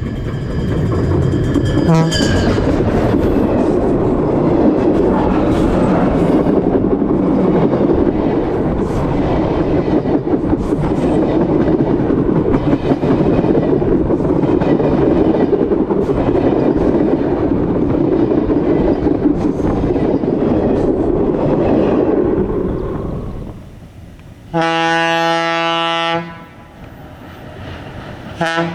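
Train running past, loud for a little over twenty seconds and then fading away. Then one horn blast about a second and a half long, and a brief toot at the very end.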